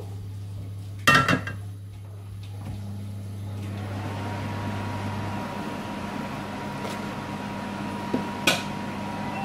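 Metal frying pan clattering with a ringing knock as it is set down on the gas hob grate, then a steady hum and hiss that build from about three seconds in, with a few lighter knocks near the end.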